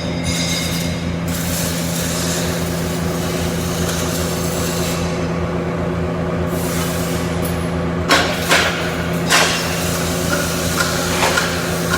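CO2 (MIG) welding: a steady electrical hum under a continuous crackling hiss, with several sharp knocks in the last few seconds.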